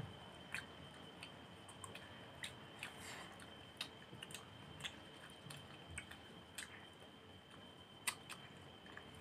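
Quiet chewing and scattered small mouth and finger clicks from people eating fish and rice by hand, over a faint steady high-pitched whine.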